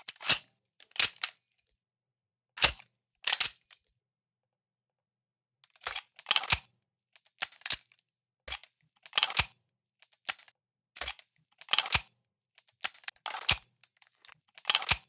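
Sharp, irregular clicks of a computer keyboard and mouse, singly and in quick pairs, with silent gaps between them.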